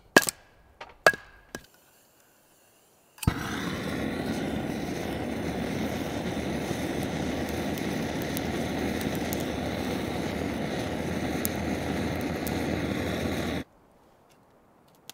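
Splitting kindling: a log strikes the back of a blade driven into firewood, giving three sharp knocks in the first second and a half. About three seconds in, a handheld gas-canister torch lights with a click and hisses steadily for about ten seconds while lighting the fire, then cuts off.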